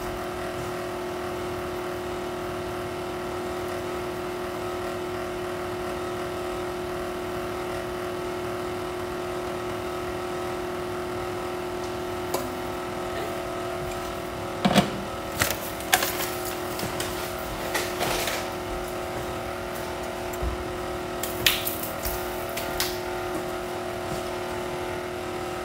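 Electric stand mixer running steadily as it beats a loose cake batter. A few sharp knocks and clatters of pans and utensils come in the second half.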